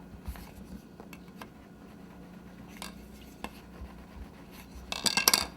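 Cake-decorating tools handled on a work surface while fondant is worked by hand: a few scattered light clicks, then a short burst of sharp clicking about five seconds in.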